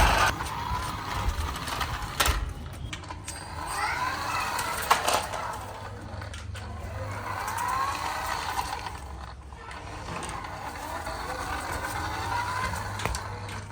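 Small electric motor of a toy remote-control car whirring, with short rising whines as it speeds up and a few knocks.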